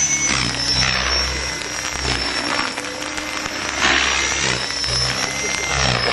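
T-Rex 600 radio-controlled helicopter in flight: a steady high-pitched drive whine with recurring whooshes from the rotor blades that swell and fade as it manoeuvres.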